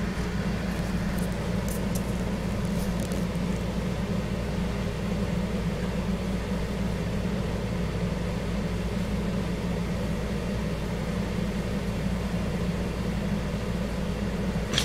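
Steady low drone of a car's engine and road noise heard inside the cabin, with a few faint ticks in the first few seconds.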